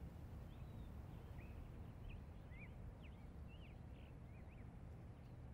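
Near silence: low room tone with a string of faint, quick bird chirps.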